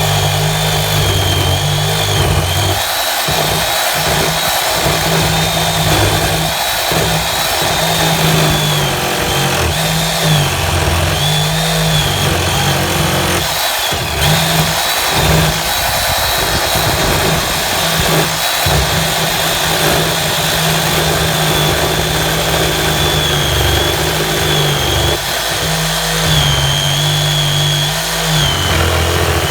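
Handheld electric power tool running under load as it trims the wooden edge of a garden gate. It runs continuously, its high motor whine dipping and recovering as the blade bites into the wood.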